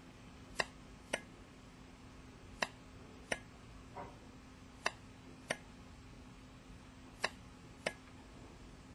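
Solenoid-driven diaphragm valve switching, four pairs of sharp clicks as it opens and then shuts about half a second later, the pairs about two seconds apart, with a faint steady hum underneath.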